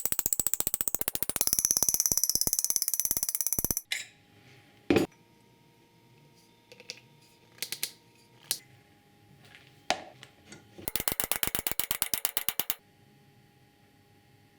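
Fast runs of sharp mechanical ratcheting clicks, twice: the first stops about four seconds in and the second lasts about two seconds near the end. A few separate knocks come in between, the loudest about five seconds in.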